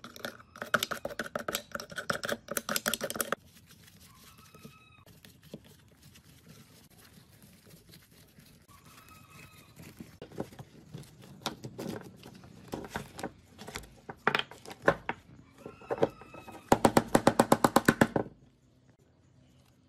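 Rusted metal parts of an old Makita cordless saw being knocked and rattled apart by hand: a run of rapid clattering knocks at the start and again near the end, with scattered clicks and scrapes between.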